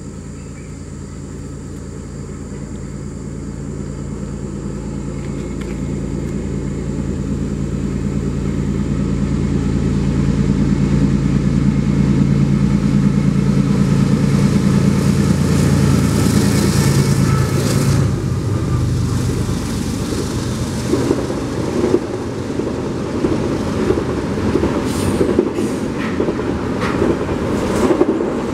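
Two BNSF diesel freight locomotives approaching and passing at speed, their engine drone growing steadily to its loudest about halfway through, then falling away. The double-stack container cars follow, a rolling rumble of wheels on rail with scattered clicks.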